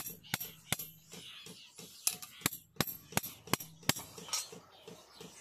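A run of about a dozen sharp metallic clinks at uneven intervals, steel cleaver blades and blanks knocking together as they are handled and laid down.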